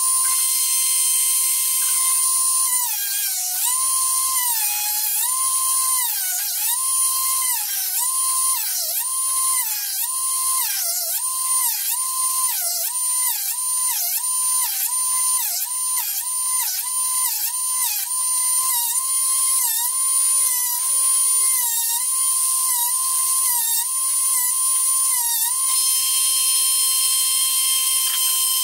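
Drill Doctor drill-bit sharpener's small electric motor running with a steady high whine. From about three seconds in, its pitch dips over and over, about once a second and then faster, as the bit, turned in its chuck, grinds against the sharpening wheel. Near the end it runs steady again.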